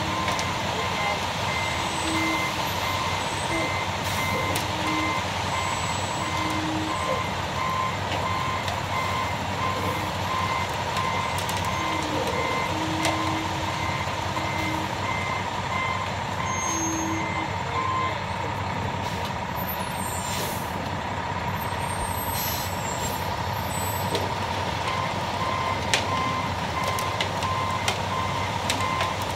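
Concrete mixer truck running steadily at a pour, its backup alarm beeping repeatedly at about two beeps a second over the engine.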